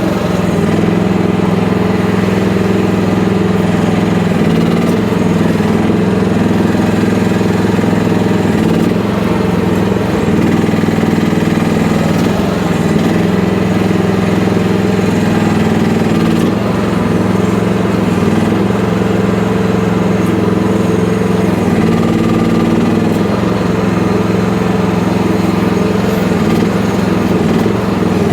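FF12 mini excavator's small engine running steadily under work, with slight shifts in pitch now and then.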